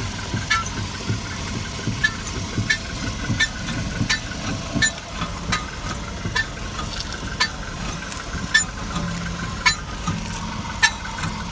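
Volkswagen Polo steering creaking with the wheel at full right lock: short, sharp creaks and clicks repeating irregularly about every half second to a second, over the steady low hum of the idling engine.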